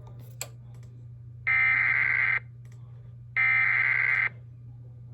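Two bursts of an Emergency Alert System SAME header, the digital data tones that open a broadcast alert, each just under a second long and about two seconds apart, over a steady low hum.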